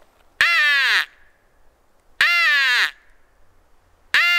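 Crow-call turkey locator blown three times: three loud, harsh caws about two seconds apart, each dropping in pitch. It is a locator call meant to draw a gobble from turkeys.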